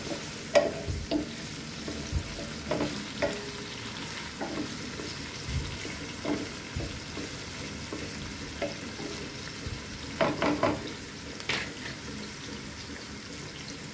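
Garlic, onion and ginger sizzling in oil in a nonstick pan while a wooden spatula stirs them: a steady frying hiss with irregular scrapes and knocks of the spatula against the pan, a quick run of them about ten seconds in.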